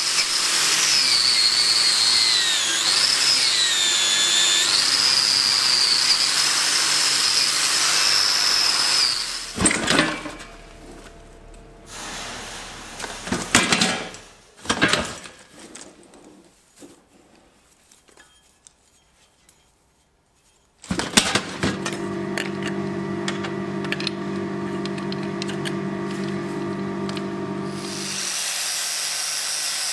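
Workshop power tools: a high-pitched whining tool that dips and wavers in pitch as it bears on the work, then several knocks and a short quiet spell. After that a motor-driven tool runs steadily with a low hum for about seven seconds, and a high hiss follows near the end.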